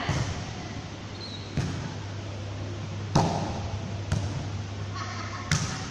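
Volleyball struck four times in a rally, sharp hits a second or so apart, each echoing in the large hall, over a steady low hum.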